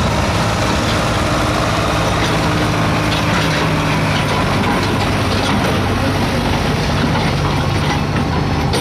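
A 1985 Chevrolet pickup's engine running steadily while it is hooked to a truck-pull weight-transfer sled, the truck starting to creep forward against the sled near the end.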